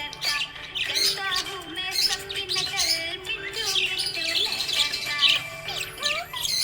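Budgies chirping and squawking in quick, busy bursts over background music with a slow melody.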